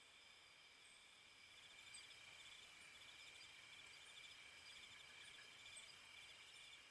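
Faint night-time ambience of crickets chirping, several steady high trills pulsing at once, growing a little louder about a second and a half in.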